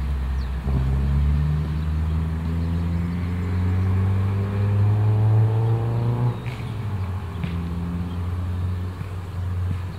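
A motor vehicle's engine with a low steady rumble. Its pitch rises slowly for about five seconds, as if accelerating, then drops away suddenly a little after the middle.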